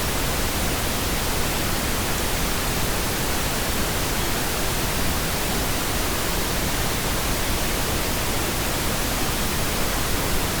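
Pink noise: a steady, even hiss spread across all pitches, with no changes.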